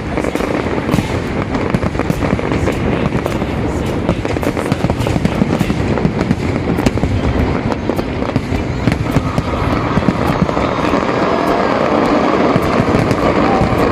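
Fireworks display in full barrage: a dense, unbroken run of bangs and crackles, many reports a second.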